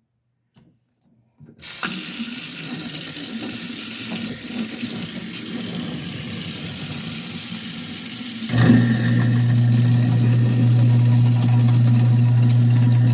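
Kitchen tap turned on, water running into the sink; about seven seconds later the garbage disposal switches on and runs with a steady low hum over the water. The disposal is running normally again after being unjammed and reset.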